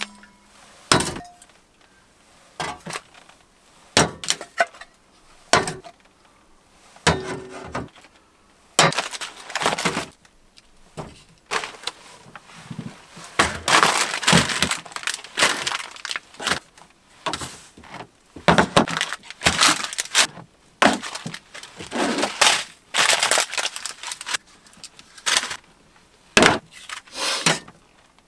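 Camping gear being handled and set down: metal bottles, tins and cans knocking and clinking on a table, with plastic food wrappers crinkling.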